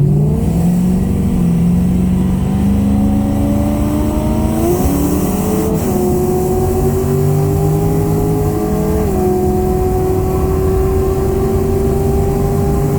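Holden VX Commodore SS's 5.7-litre LS1 V8 at full throttle in a roll race. Its pitch climbs steadily and drops at two gear changes, about six and nine seconds in.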